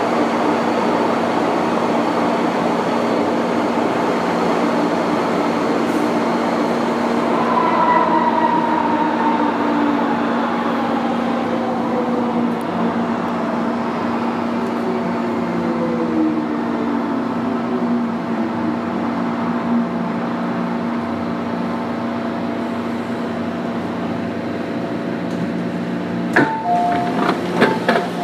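Running sound of an MTR Kwun Tong line M-Train (Modernisation Train) heard from inside the cab: a steady rumble of wheels and running gear. From about eight seconds in, several whines fall slowly in pitch as the train slows. A few sharp knocks and short tones come near the end.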